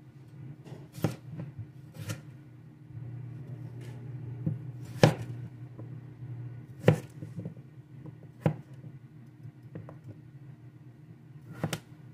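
Chef's knife cutting raw yellow potatoes on a plastic cutting board: about eight sharp, irregularly spaced knocks of the blade through the potato onto the board, over a low steady hum.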